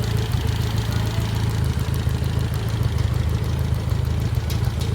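An engine idling steadily, a low even hum with a fast regular pulse.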